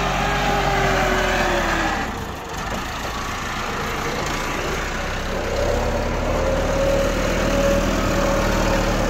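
Tractor engine running while it clears a track. Its pitch falls about two seconds in, and it builds up and pulls harder again from about halfway through.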